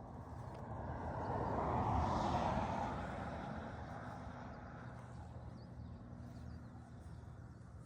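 A vehicle passing by, swelling to its loudest about two seconds in and then fading away over the next few seconds, over a steady low background hum.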